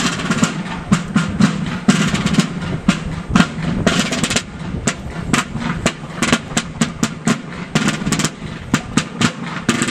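Military field drum beaten in a marching cadence: a steady run of sharp strokes, some packed into quick rolls.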